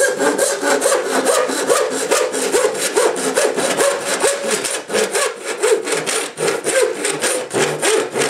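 Lenox 12-inch PVC/ABS handsaw cutting through black ABS pipe in a run of quick back-and-forth strokes, its teeth rasping on the plastic.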